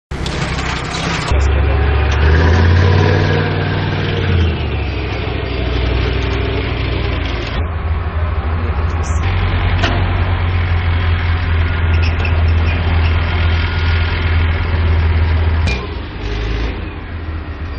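Bergepanzer 2 Leopard armoured recovery vehicle's ten-cylinder MTU multi-fuel diesel running with a deep, steady rumble. The engine note shifts abruptly a few times.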